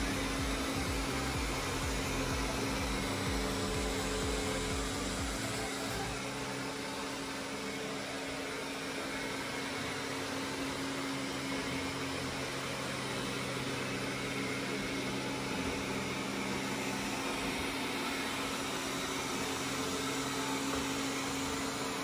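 Roborock S6 robot vacuum cleaner running at its Max suction setting: a steady whirring hum with a constant tone over the rush of air. A low rumble underneath drops away about six seconds in.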